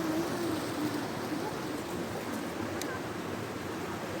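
Steady rush of flowing stream or waterfall water, with a faint voice in the first second and a single small click a little under three seconds in.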